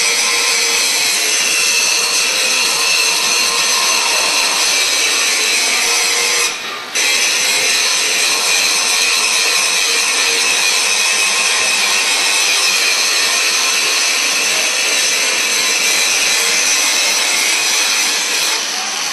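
Electric arc welding: a steady, loud hiss and crackle of the arc that breaks off abruptly for a moment about six and a half seconds in, then restarts.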